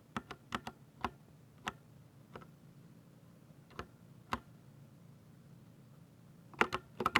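Keystrokes on a 60% mechanical keyboard with Ducky silver switches: single sharp key clicks spaced out at first, a pause in the middle, then a quick run of several keys near the end.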